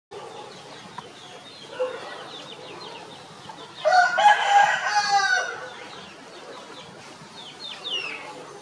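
A rooster crows once, about four seconds in, one long call of about a second and a half, over the high peeping of chicks.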